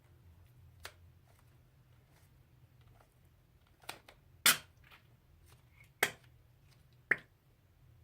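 A handful of short, sharp clicks and snaps, made while handling slime-making materials, spread out over a low steady hum; the loudest comes about four and a half seconds in.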